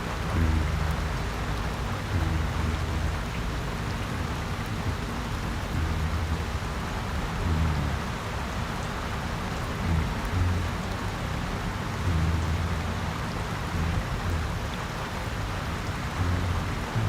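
Steady rain falling, with a low hum that comes and goes underneath it every second or two.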